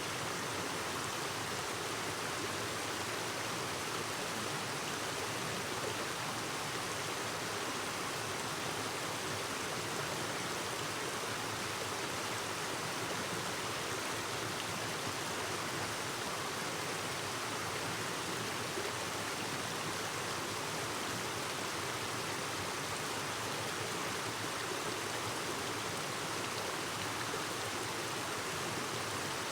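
Clear mountain stream babbling steadily over rocks: a constant, even rush of flowing water with no breaks.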